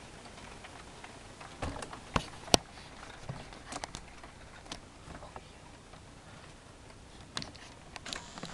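Irregular small clicks and taps over a low steady hiss, the sharpest about two and a half seconds in; no helicopter rotor or engine sound stands out.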